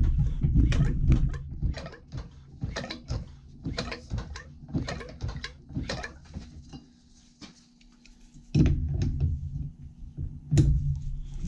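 Irregular metal clicks and clinks of a long bar and socket working the just-freed flywheel nut on a Briggs & Stratton lawn tractor engine, a few a second, with a quieter pause and then a couple of heavier handling knocks near the end.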